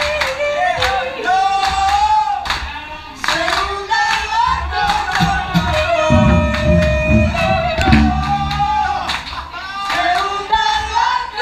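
Live music: a singer holding and bending sung notes of a Spanish-language song over instrumental accompaniment, with a strong bass line swelling about halfway through.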